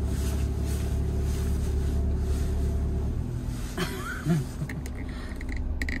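Car engine idling, a steady low hum heard from inside the cabin.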